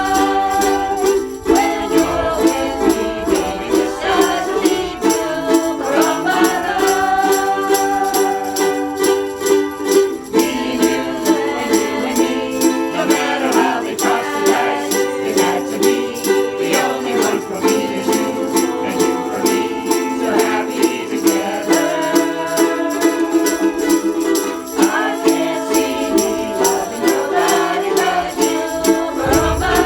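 A group of ukuleles strumming a song together in a steady rhythm, with a group of voices singing along.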